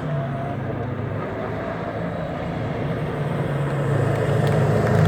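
Hill-climb race car engine running at low, steady revs as the car rolls back down the course, growing louder near the end as it draws closer.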